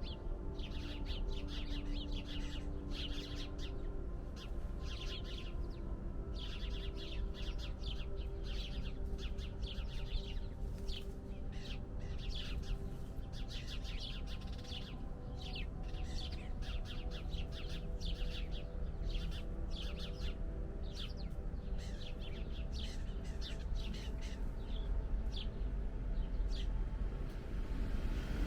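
Small songbirds chirping in many quick, short calls that overlap throughout, with steady low held tones underneath.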